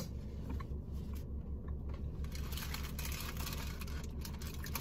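Food being chewed with small soft crunches and rustles, over a steady low hum in the car cabin.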